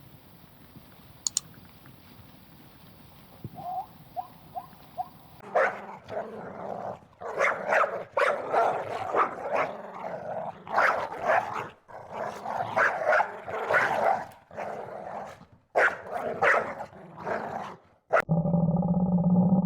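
A dog barking over and over in quick, uneven volleys, after a few short yips. Guitar music cuts in abruptly near the end.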